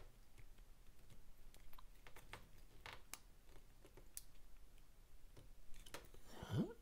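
Faint, scattered small clicks of a bit driver's tip seating and turning in a screw in a folding knife's handle. A brief rising sound a little after six seconds in is louder than the clicks.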